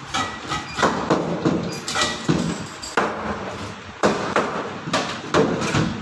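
Butcher's cleaver chopping rohu fish pieces on a wooden chopping block: a series of sharp, irregularly spaced chops, about one or two a second.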